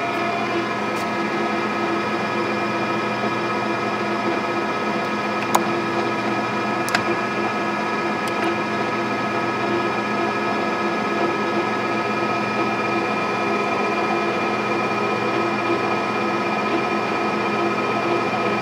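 South Bend engine lathe running steadily, a constant hum with several steady whining tones from the motor and gearing. A couple of sharp clicks come midway.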